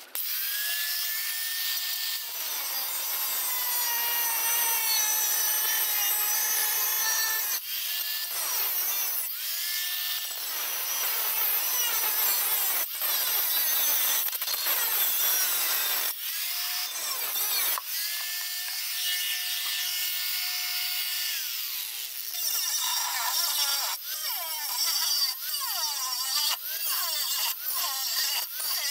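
Angle grinder with a thin cutting wheel cutting through sheet steel. It is stopped and restarted a few times, running free with a steady whine before biting into the metal again, and the cut is more uneven near the end.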